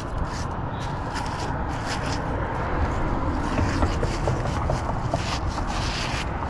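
Scrap metal scraping and clicking as it is handled from a fishing magnet, over a steady low rumble.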